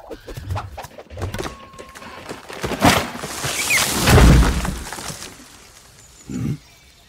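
Animated-film sound effects: a few scattered knocks and rustles, then a loud rushing whoosh with a deep rumble that swells and peaks about four seconds in as a dust cloud sweeps past. A short dull thud follows near the end.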